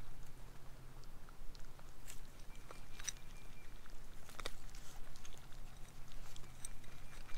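Four-week-old Great Pyrenees puppies eating dry puppy kibble from bowls: scattered small crunches and clicks of chewing.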